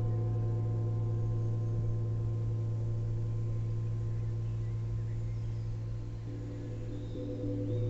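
Large hanging gong played with two soft mallets: a deep, sustained hum with many ringing overtones, easing a little in the last couple of seconds with some overtones wavering, then swelling again at the very end.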